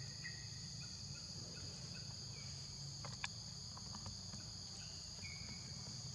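Steady high insect drone at two pitches, with a few faint short clicks about three seconds in.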